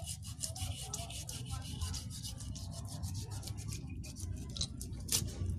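Knife blade scraping quickly along a mudfish's skin and scales in short repeated strokes, several a second, a dry rasping sound, as the fish is scaled and cleaned.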